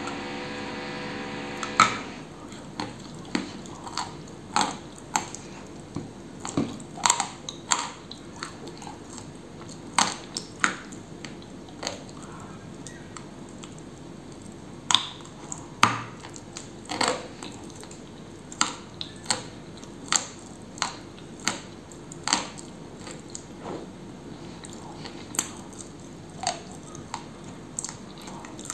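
Biting and chewing pressed edible clay spread with cream: crisp crunches about once a second, with quieter chewing between them.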